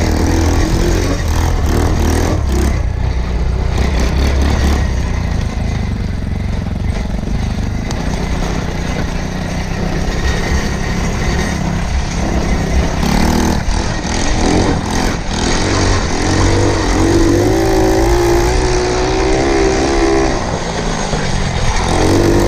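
A 110cc quad's small single-cylinder engine running under throttle while being ridden, its pitch rising and falling as it speeds up and slows down.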